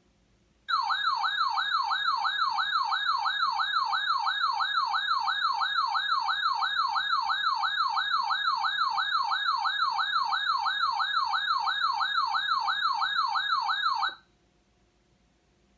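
An electronic siren-like tone warbling rapidly up and down in pitch, about three sweeps a second. It comes in suddenly about a second in and cuts off abruptly after about thirteen seconds.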